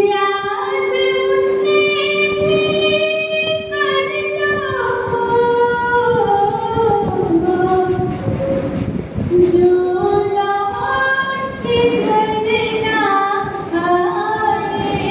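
A girl singing a slow song solo into a handheld microphone, holding one long steady note over the first few seconds, then moving through gliding, drawn-out phrases.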